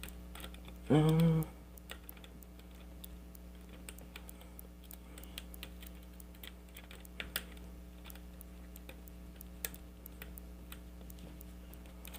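Light, irregular metallic clicks of a hook pick and tension wrench working the pins of a pin-tumbler challenge lock. There is a short hum-like vocal sound about a second in, over a faint steady electrical hum.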